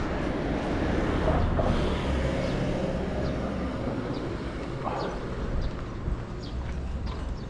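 A small car passes close by on the adjacent road, its tyre and engine noise swelling and fading in the first few seconds over a steady low rumble. Faint footfalls tick about twice a second.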